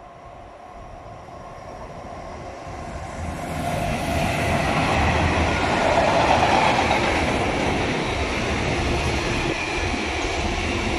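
Freight train of tank wagons approaching and rolling past. The rail noise grows louder over the first four seconds or so, then settles into the steady running of the wagons' wheels on the rails.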